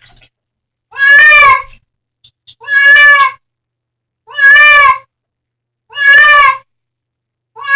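A cat meowing over and over: a long, loud meow about every second and a half, each one much the same.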